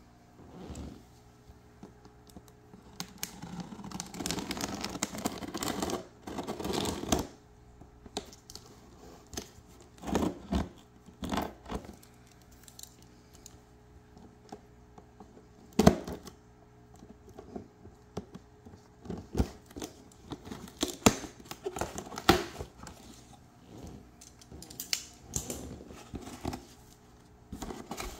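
Scissors cutting the clear tape that seals a cardboard laptop box, and the box being handled and opened: several seconds of scraping and tearing of tape and cardboard, then scattered sharp clicks and knocks of the cardboard being handled.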